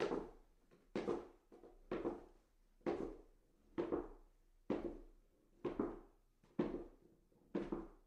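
Footsteps walking up stairs at a steady pace, about one step a second, each step a single thud with a short tail.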